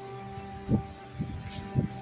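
Soft background music with three dull thumps as hands press and handle a non-woven waxing strip on skin, and a short rip about one and a half seconds in as the strip is pulled off.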